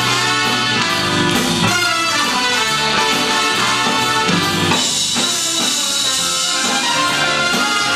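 Jazz band music with brass and drum kit playing.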